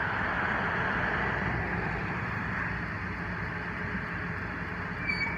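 Ambulance engine running as the vehicle rolls slowly out of the station, with a brief high squeak about five seconds in.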